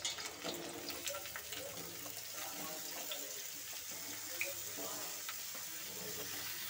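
Pumpkin chunks dropped into hot oil in a kadai, sizzling steadily, with a few light knocks as pieces land in the first seconds.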